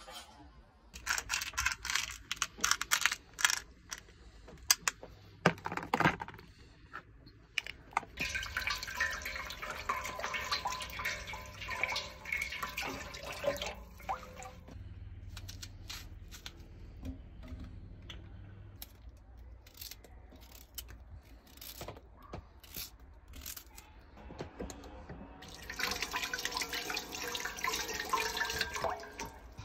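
Kitchen tap running into a steel pot in a sink while vegetables (a leek, then small potatoes) are rinsed by hand, in two stretches, the second near the end. Before the water first starts, a few seconds of crinkling and knocking handling noises.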